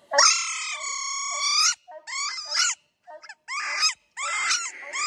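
Coonhounds bawling where they have run a raccoon to its den: one long drawn-out bawl, then a string of shorter barks.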